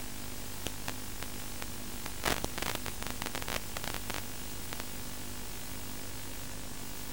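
Steady static hiss with a low hum from an analog FPV video link's audio channel, broken by a cluster of sharp crackles about two to four seconds in.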